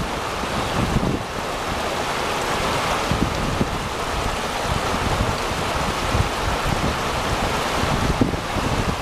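Fast-flowing glacial river rushing steadily, with gusts of wind buffeting the microphone.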